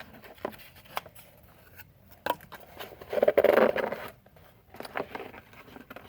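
Small plastic bottles and kit packaging being handled and set down: scattered light clicks and taps, with a louder rustling scrape about three seconds in.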